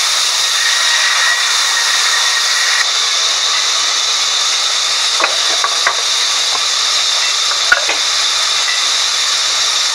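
Sawmill band saw blade running through a reddish hardwood log, a steady loud hiss with a high whine in it. A few sharp knocks come in the second half, the loudest a little before the end.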